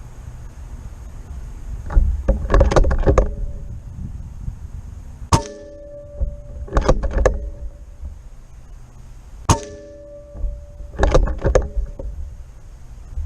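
.25 calibre Benjamin Kratos PCP air rifle fired twice, about four seconds apart, each shot a sharp crack followed by a short metallic ring. Bursts of clicking and clatter come before and between the shots.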